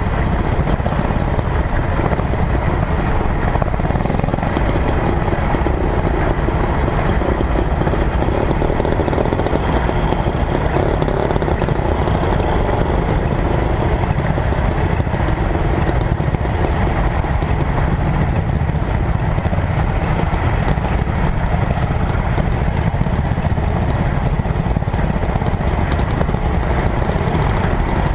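Steady engine and road rumble of a car driving slowly behind a group of motor scooters, picked up by a camera mounted on the car's hood.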